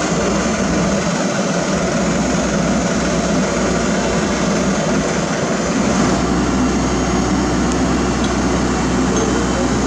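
Heavy asphalt-paving machinery (paver finisher, tandem roller, dump trucks) running with a steady, loud diesel engine drone. A deeper rumble fills in more firmly about six seconds in.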